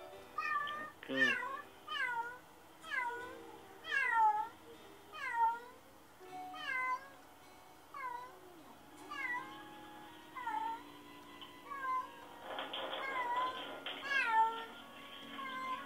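Domestic cat meowing over and over, a long run of short cries falling in pitch, about one or two a second. This is lonely crying: the cat has been left home alone.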